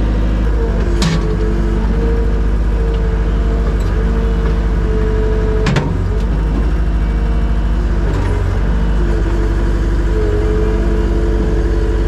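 Skid steer engine running steadily, heard from the operator's seat, with a whining tone that comes and goes and shifts in pitch as the loader arms are worked. Two sharp clicks, about a second in and again just before six seconds.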